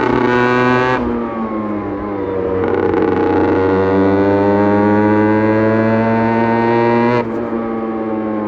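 Aprilia RS 125's single-cylinder two-stroke engine under way. It holds high revs, falls off about a second in, then climbs back up and holds high revs before dropping sharply near the end.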